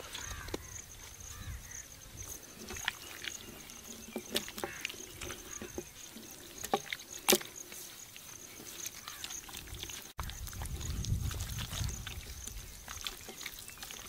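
Hands rubbing salt and spice paste into raw chicken on a wooden board: soft wet squelches and scattered light taps, the sharpest about seven seconds in. A steady high insect drone runs underneath.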